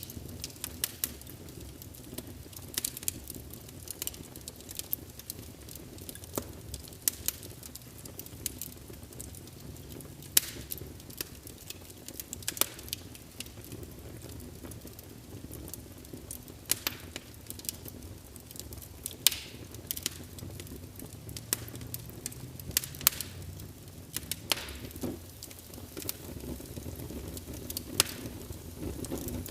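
Log fire crackling: irregular sharp pops and snaps over a low, steady rumble of burning wood.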